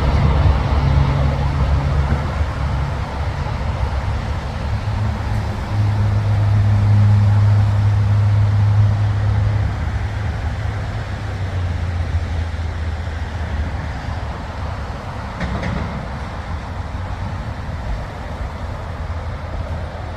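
Steady low rumble of freeway traffic crossing the Interstate 405 bridge overhead. It swells about six seconds in and slowly fades toward the end.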